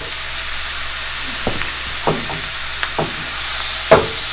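Minced garlic sizzling steadily in a generous amount of hot olive oil in a frying pan, with a few short knocks, the loudest near the end.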